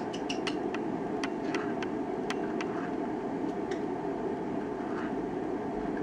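A green-cheeked conure making a run of quick, sharp clicks in its cage, about a dozen in the first three and a half seconds, then stopping. A steady hum of room noise runs underneath.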